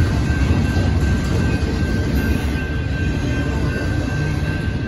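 Double-stack intermodal well cars rolling through a grade crossing: a steady loud rumble of wheels on rail, with a thin high steady tone running through it.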